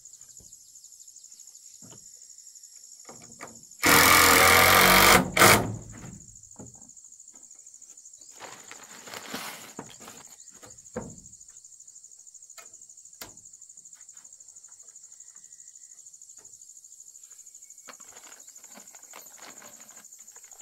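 Cordless drill-driving a screw into a wooden wall board: one loud run of about a second and a half, then a short blip just after. Insects drone steadily throughout, with a few light knocks later on.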